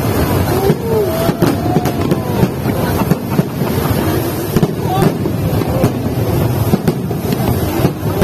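Dense chatter of a large outdoor crowd of spectators, many voices overlapping, with wind rumbling on the microphone.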